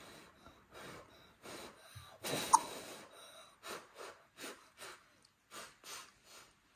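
A child blowing a dozen or so short puffs of breath onto a hot forkful of steamed food to cool it. The loudest puff comes about two and a half seconds in.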